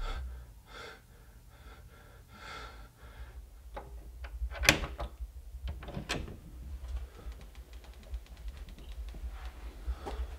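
Heavy breathing, then two sharp door-like bangs about a second and a half apart, followed by a fast run of faint clicks over a low rumble.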